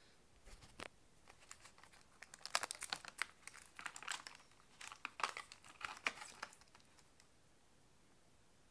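Clear plastic packaging around a mini keyboard crinkling and crackling in short bouts as it is handled, stopping about seven seconds in.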